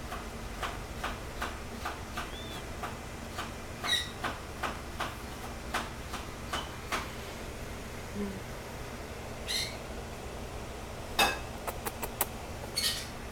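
A knife chopping celery on a cutting board in a steady rhythm, about two to three strokes a second, then slowing to scattered knocks. A kitten gives a few short high-pitched mews.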